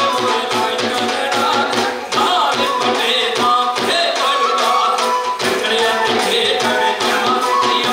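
Punjabi folk music for a luddi dance: a fast, steady drum beat of about four strokes a second under a sustained melody.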